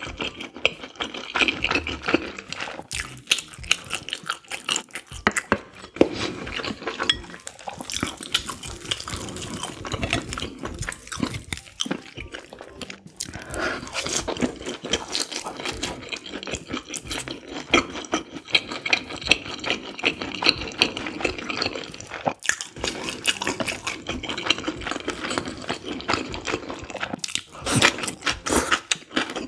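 Close-miked wet chewing and slurping of noodles in spicy soup: dense, irregular smacks and clicks of the mouth.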